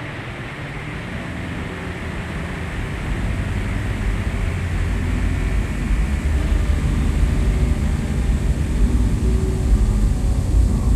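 Dense, rumbling noise drone from an experimental soundtrack, heavy in the low end, swelling steadily louder.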